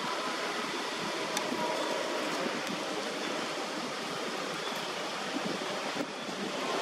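Steady rushing wind noise with no distinct events standing out of it.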